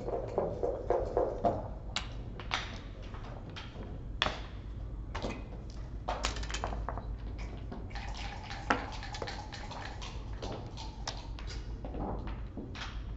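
Backgammon checkers clicking and tapping as they are moved and set down on the board: a quick run of clicks at first, then scattered single taps, over a steady low hum.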